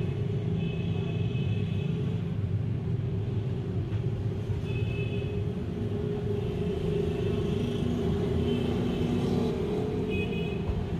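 Steady low engine rumble, with a few short high-pitched tones over it.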